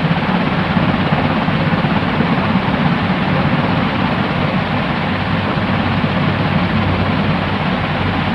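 Steady white noise for sleep: an even, unbroken hiss with a low rumble under it, without rhythm or change.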